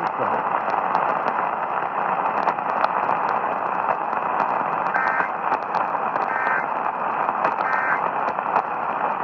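Radio reception hiss and static crackle. About five seconds in come three short, faint two-tone data bursts, a little over a second apart: the Emergency Alert System end-of-message code that closes the alert.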